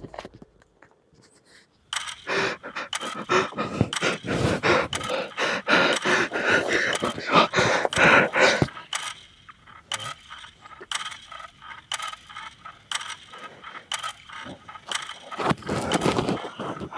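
A man panting hard in fright, with scraping and rustling clicks. It starts about two seconds in after near silence, and the breathing and clicks thin out in the second half.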